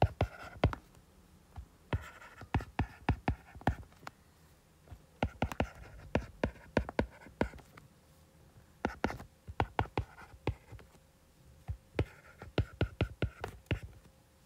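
Stylus writing on a tablet's glass screen: clusters of sharp plastic-tip taps with faint scraping as each handwritten symbol is drawn, with short pauses between groups.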